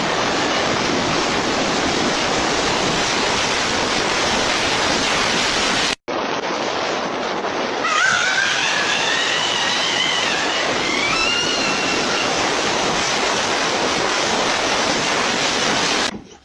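Steady, loud rushing noise like wind or surf. It cuts out for an instant about six seconds in, and a high, wavering, voice-like call glides up and down over a few seconds partway through.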